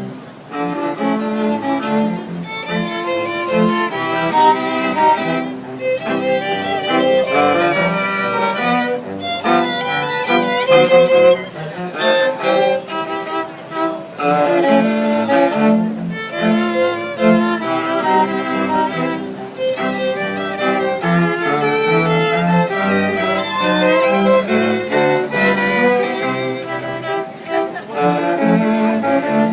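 A string quartet of two violins, viola and cello playing a lively piece, with a melody of short bowed notes over cello notes, in phrases broken by brief pauses.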